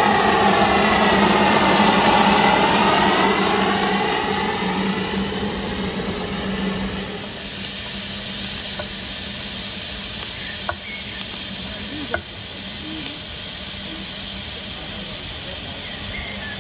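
A miniature steam road vehicle running close past with a steady hum, its noise sweeping as it goes by. About seven seconds in it gives way to a quieter, steady hiss of steam from a miniature traction engine standing in steam, with two small clicks.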